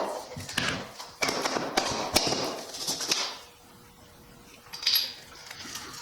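Hand tools and metal transmission parts clinking, knocking and scraping during a 47RE transmission teardown. A rapid run of clicks and knocks gives way to a short lull, then another brief clatter.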